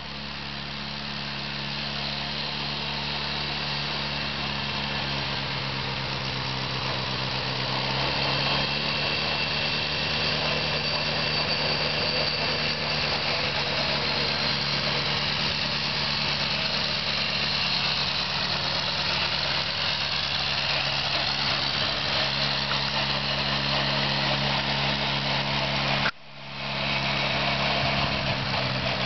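1952 Massey-Harris Pony tractor's small four-cylinder Continental flathead engine running steadily under way, growing louder over the first several seconds as the tractor approaches. Near the end the sound cuts out for a moment, then returns.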